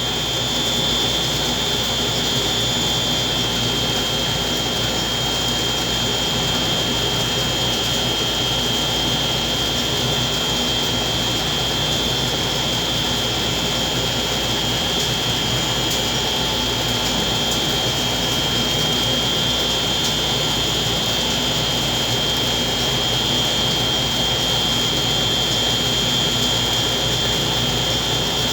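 Steady machine whir with a constant high-pitched whine, unchanging throughout.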